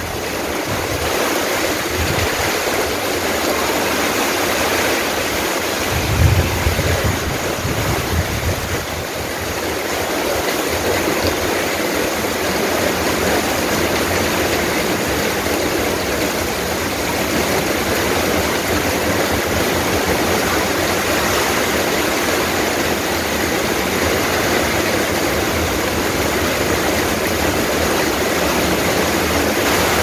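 Heavy rain pouring steadily onto a tiled courtyard and garden foliage, an even, dense hiss. A brief low rumble swells about six seconds in.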